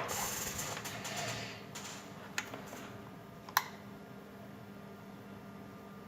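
Light handling noise and a few sharp clicks, the loudest at the start, about two and a half seconds in and near three and a half seconds, from tools working on a motherboard while new capacitors are soldered in, over a faint steady hum.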